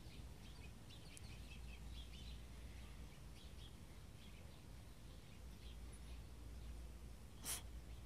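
Faint outdoor background with a low rumble and scattered faint, short high chirps. There is one sharp click near the end.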